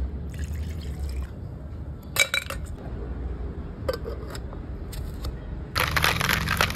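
Liquid poured into a stainless steel cocktail shaker, followed by sharp metal clinks as the shaker's cap is fitted. Near the end the shaker is shaken hard, with ice rattling inside.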